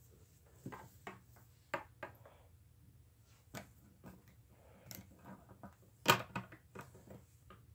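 Scattered light clicks and knocks of a braided paracord sling and its metal sling swivel being handled, with a sharper click about six seconds in.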